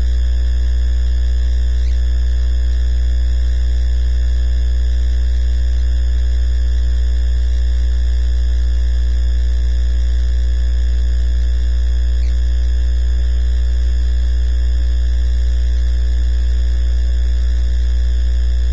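Loud, steady electrical mains hum: a constant low drone with a buzzy ring of higher overtones, unchanging throughout.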